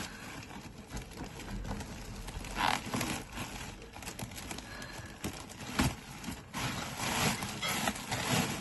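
A parcel being opened by hand: packaging rustling and tearing in uneven spurts, busier in the second half.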